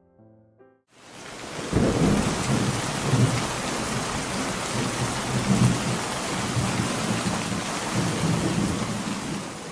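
Heavy rain with rolling thunder, coming in about a second in and easing off near the end, after the last few notes of a piano.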